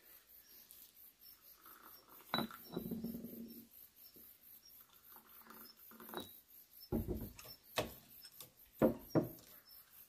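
Light clinks and knocks of ceramic teacups being handled and set down, a handful of them, with a short soft sound about two and a half seconds in.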